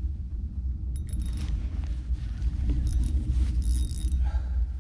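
Spinning reel being cranked against a heavy fish, giving short scratchy bursts of reel noise about a second in and again around three to four seconds in, over a steady low rumble of wind on the microphone.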